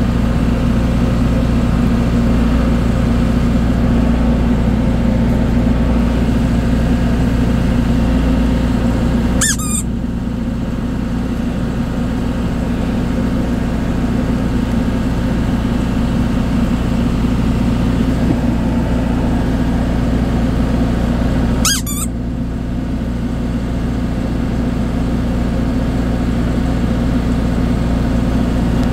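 Ship's engine running with a steady low drone throughout. Twice a brief sharp chirp cuts in, and after each the drone is a little quieter.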